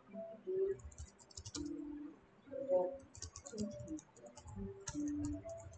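Computer keyboard typing in three short runs of keystrokes, with faint low tones underneath.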